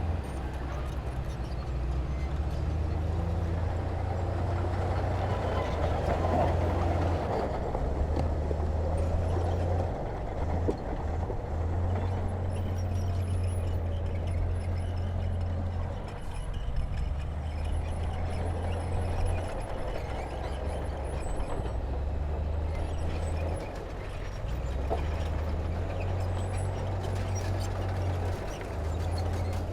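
Diesel engine of heavy earthmoving equipment running steadily with a deep rumble, its load rising and easing at times.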